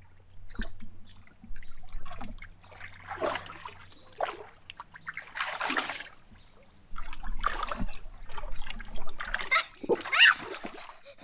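A child wading and splashing through shallow water in an inflatable pool: several separate splashes a second or two apart, the biggest about halfway through.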